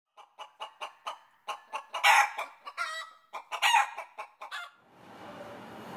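Chicken clucking: a quick run of short clucks, then two louder, longer squawking calls about two and three and a half seconds in, trailing off into a few softer clucks.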